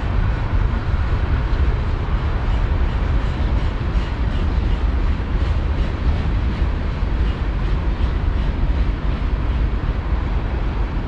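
Freight train cars, tank cars and lumber-loaded centerbeam flatcars, rolling past: a steady rumble of steel wheels on rail with faint regular clicking.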